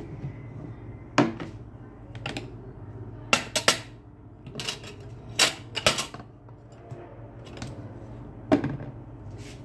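Spatula knocking and scraping against a frying pan while turning frying potato patties: about ten sharp clacks at uneven intervals, some in quick pairs, over a steady low hum.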